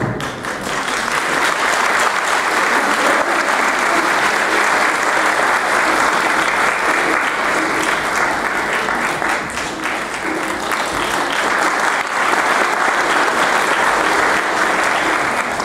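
Audience applauding steadily, thinning out and fading near the end.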